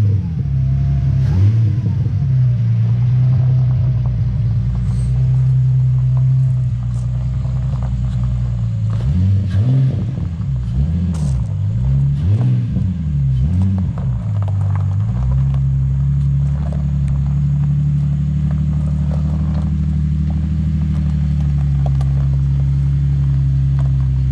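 A car engine idling steadily, revved up and down in several quick blips around the middle, then settling back to an even idle.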